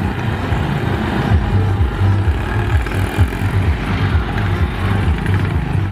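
Auto-rickshaws (three-wheeler tuk-tuks) driving along a dirt track, their small engines running with a steady low rumble.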